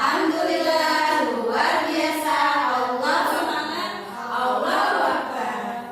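A group of children singing a song together in unison, loud and sustained.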